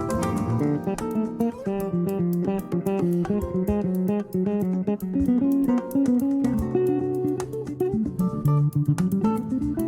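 Background music: a plucked guitar tune with a bass line, notes changing quickly in a steady rhythm.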